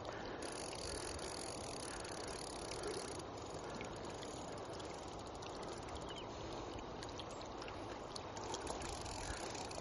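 River water flowing steadily, a constant rushing hiss.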